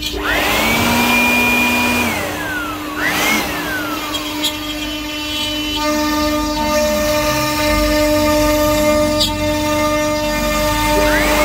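An electric power tool's motor spins up to a high whine, holds briefly, then winds down. This happens at the start, again about three seconds in (shorter), and once more near the end, over a steady droning hum.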